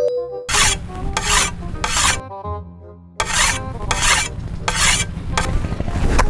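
Sharpening stone rubbed back and forth along a steel hoe blade: a series of rasping strokes, about one every 0.7 seconds, with a pause of about a second partway through.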